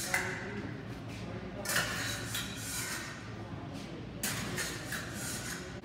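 Épée blades clashing and scraping together as the fencers engage, with a few sharp hits spread over the few seconds, mixed with footwork on the fencing strip.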